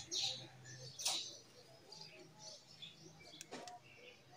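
Hands rubbing and sliding a clear plastic sheet and soft modelling clay on a tabletop: short rustling swishes at the start and about a second in, then a few light taps.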